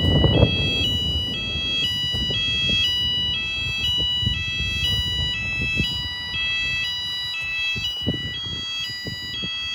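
School fire alarm sounder going off: a loud electronic two-tone alarm that alternates between two high pitches, changing about twice a second, over a steady higher tone.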